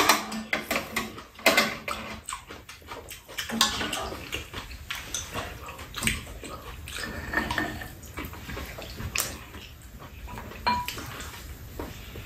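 Eating sounds: wet chewing and smacking, with irregular clicks and clinks of chopsticks and spoons against bowls, a pan and a metal tray. The clicks come thickest in the first couple of seconds.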